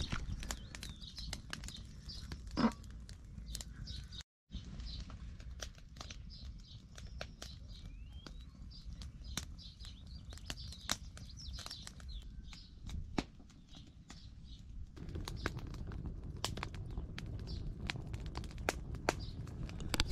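Outdoor ambience: small birds chirping, with scattered sharp clicks and taps and a low rumble underneath. The sound drops out completely for a moment about four seconds in.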